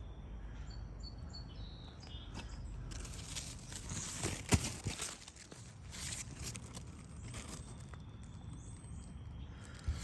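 Rustling and handling noise as a handheld phone moves in among garden plants, leaves brushing near the microphone, with one sharp tap about halfway through. A few faint bird chirps sound in the first two seconds, over a low wind rumble.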